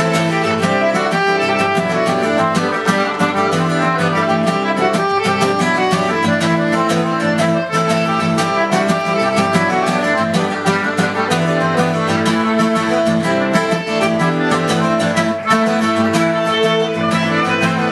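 Celtic folk band playing a quick dance tune: fiddle leading over strummed acoustic guitar.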